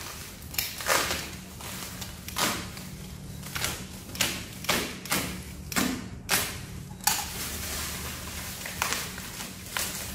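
Bubble-wrap packaging being cut and pulled off, rustling and crackling in about a dozen short bursts, over a faint steady low hum.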